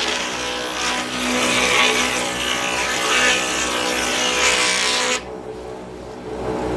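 Bench-mounted wood router running with a steady motor whine while it cuts wood, with a loud hissing cutting noise. About five seconds in the cutting noise drops away while the motor keeps running, then it picks up again near the end.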